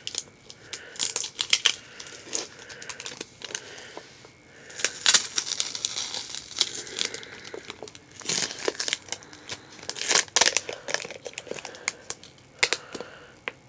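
Paper being handled by hand, crinkling and tearing in irregular runs of quick crackles and rips.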